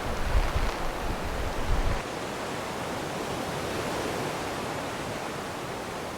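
Wind and rushing water outdoors on a sailboat. For the first two seconds gusts buffet the microphone with a low rumble, then it changes abruptly to a smoother, steady rush.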